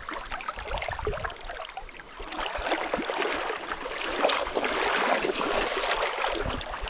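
Water splashing and sloshing close by, with many small splashes, growing louder about two seconds in.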